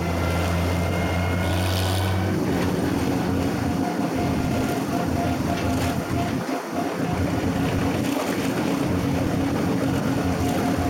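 Farm tractor engine running steadily while towing a passenger wagon, its note shifting about two seconds in.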